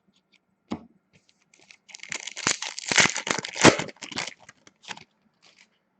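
Foil trading-card pack wrapper being torn open and crinkled: a single tap just under a second in, then about three seconds of dense crackling and tearing.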